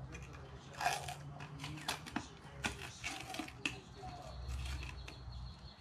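Cap and paper or plastic seal being worked off a plastic motor oil jug over the funnel: a string of sharp crinkles, scrapes and clicks.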